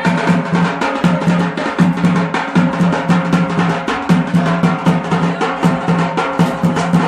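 Tabl drum beaten in a fast, steady dance rhythm, several strokes a second.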